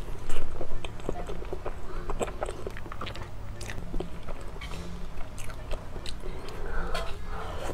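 Close-miked chewing of soft mille crêpe cake: mouth sounds with many short clicks, loudest about half a second in, over a low steady hum.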